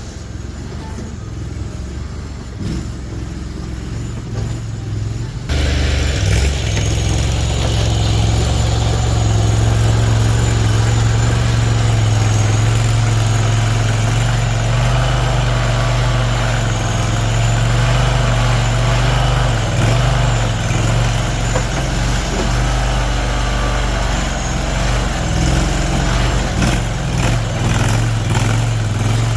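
Mini skid steer's small engine running steadily. It is quieter for the first five seconds or so, then suddenly louder.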